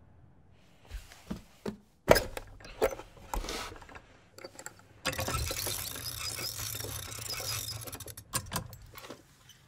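Cylinder music box being handled: a few clicks and knocks as its wooden lid is opened, then from about five seconds in a fast ratcheting for about three seconds as its side crank is wound, ending in a couple of clicks.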